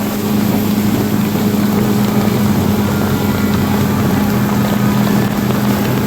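Four Winns motorboat's engine running steadily at speed while towing a tube.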